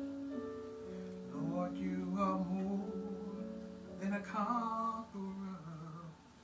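A woman singing a gospel worship song into a handheld microphone over an instrumental backing of long held notes. The singing comes in stretched-out phrases, and the music fades away near the end.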